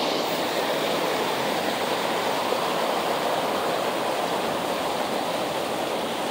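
Stream water rushing steadily over a small salmon fish pass, a continuous whitewater noise that eases slightly near the end.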